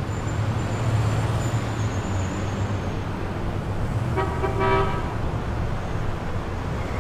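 Steady low traffic-like rumble, with a short horn toot lasting under a second about four seconds in.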